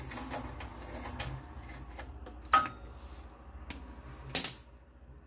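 Metal hand tools and loose nuts clinking: a few light clicks, then two sharp metallic clinks about two seconds apart, the first ringing briefly.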